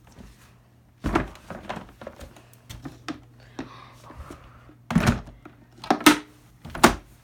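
Hard plastic knocks and thunks as a vacuum cleaner is put back together after its dust bag is refitted. There are several separate knocks, the loudest about a second in and three more close together near the end.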